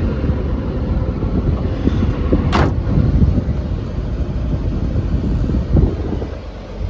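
Cummins diesel engine of an XCMG XE210 excavator running steadily, with one sharp knock about two and a half seconds in.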